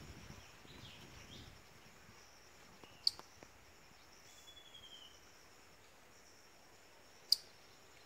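Two short, sharp calls about four seconds apart from a young white-throated kingfisher, with a faint high insect chirr running underneath.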